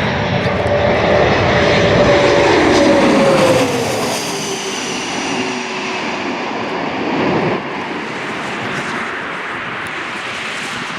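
Airliner passing low on its landing approach: a loud engine rush with whining tones that slide down in pitch as it goes by, loudest a few seconds in, then easing into a steadier, quieter rumble.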